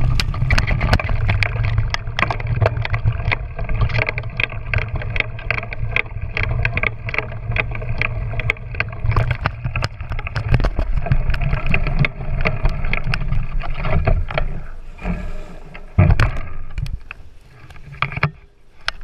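A small engine running as it travels over a rough dirt track, with frequent rattles and knocks from the bumps. The engine sound drops away near the end.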